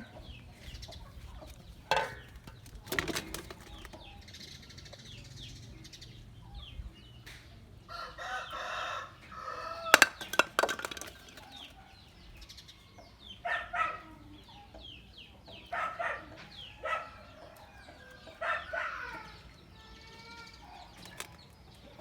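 Chickens clucking off and on, with a rooster crowing once about eight seconds in. A few sharp clatters cut through, the loudest about ten seconds in.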